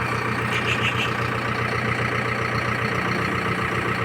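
Manitou backhoe loader's diesel engine running steadily at low revs, a constant even hum with no revving.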